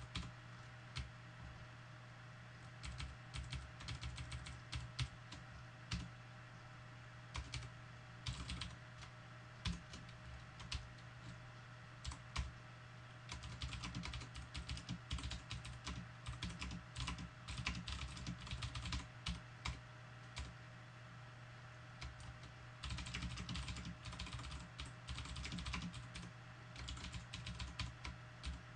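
Typing on a computer keyboard in quick bursts of keystrokes with short pauses between them, over a steady low hum.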